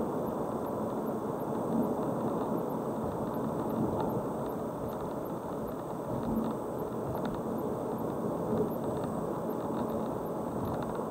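Car driving along a road: steady tyre and engine noise, with a few light rattles.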